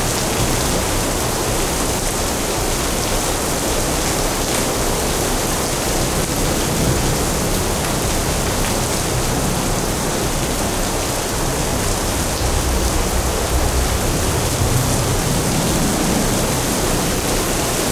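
Steady heavy rain, a continuous rain-sound track. A low rumble swells under it a few times, about seven seconds in and again near the end.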